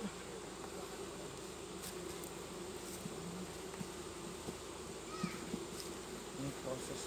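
Western honey bee colony buzzing in an open hive box, a steady hum from the mass of bees on the exposed frames.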